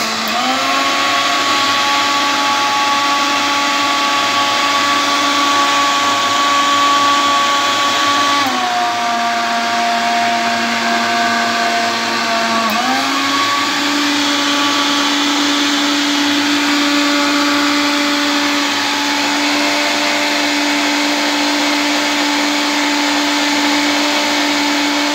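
Countertop blender's motor running steadily as it blends a banana milkshake. Its pitch drops about eight seconds in and rises higher again about four seconds later as the speed knob is turned.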